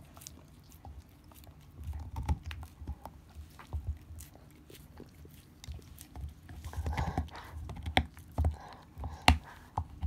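An Akita dog gnawing a deer bone: irregular clicks, scrapes and crunches of teeth on bone, with wet licking and mouth sounds, getting busier in the second half.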